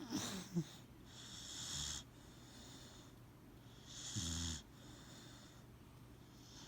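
Cane Corso puppy snoring in its sleep: slow breaths with a wheezy whistle, and a louder snore with a low rumble about four seconds in.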